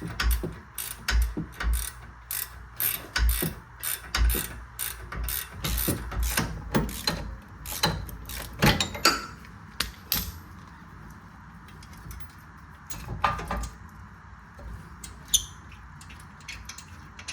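Socket ratchet wrench clicking in quick strokes while a bolt on the rear brake assembly is worked, the clicks thinning out to a few scattered ones after about ten seconds.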